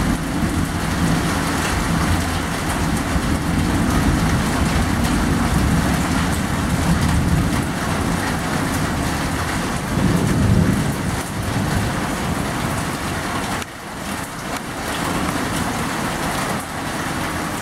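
Heavy rain pouring steadily, under a low rumble of thunder that swells about ten seconds in and drops away sharply about fourteen seconds in.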